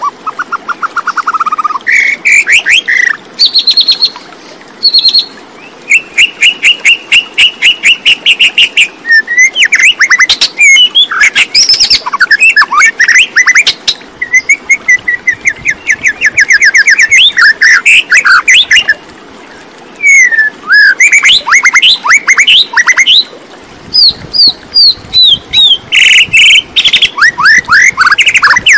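A songbird singing a long, varied song of fast trills, rapid runs of repeated notes and downward-sliding whistles, with short pauses between phrases.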